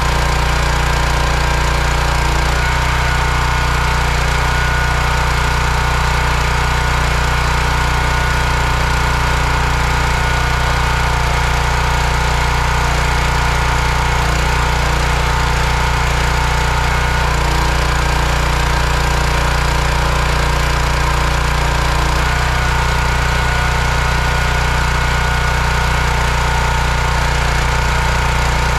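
Small petrol engine of a hydraulic log splitter running steadily at a constant speed. Its note shifts slightly a few times as the ram is worked to split a log.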